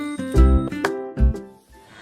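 Upbeat background music of plucked notes with a couple of low thumps, ending about one and a half seconds in.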